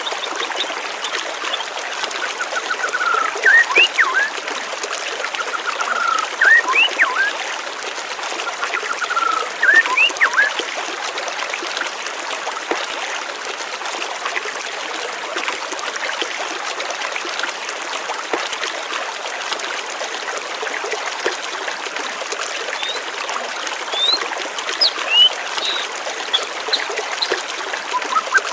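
A stream of water flowing steadily, with birds chirping over it: three short trills with quick rising notes in the first ten seconds, then more chirps near the end.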